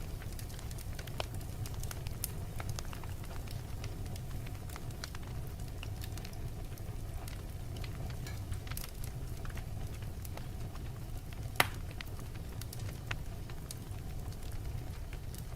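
Wood fire burning in a fireplace: a steady low rumble with scattered crackles and pops, one sharper pop near the end.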